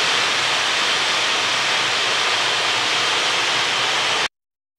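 Steam hissing steadily from the safety valves of LMS Ivatt Class 4 2-6-0 steam locomotive No. 43106 as it blows off at full boiler pressure. The sound cuts off suddenly near the end.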